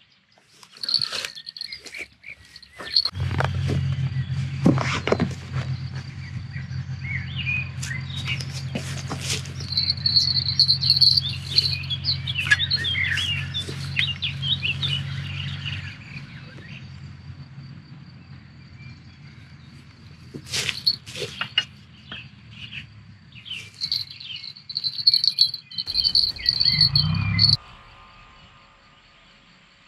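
Birds chirping with a high insect-like trill, over a low steady hum that starts about three seconds in and fades out about halfway. A few scattered clicks and knocks.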